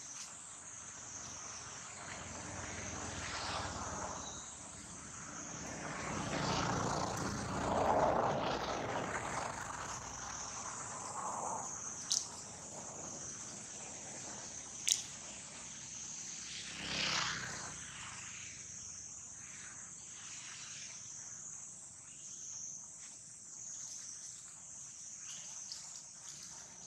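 Outdoor ambience with a steady high-pitched insect drone. A broader swell of noise builds and fades about seven to nine seconds in, and there are two sharp clicks a few seconds apart.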